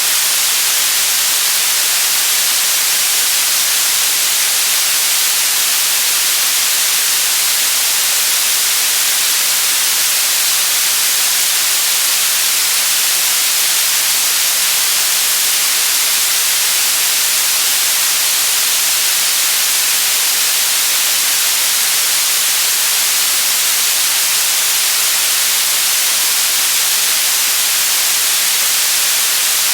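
Steady white noise: a constant, unchanging hiss, bright and thin in the bass.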